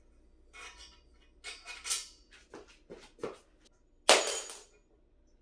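Metal desk parts and hardware clinking and knocking as they are handled, with one loud metallic clank that rings briefly about four seconds in.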